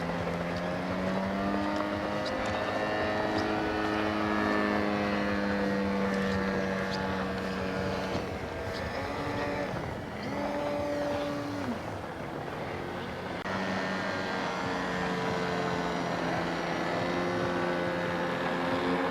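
Piston engine of a radio-controlled model airplane in flight, its pitch drifting up and down with throttle changes and passes. About eleven seconds in a second engine tone falls quickly away as another plane flies by.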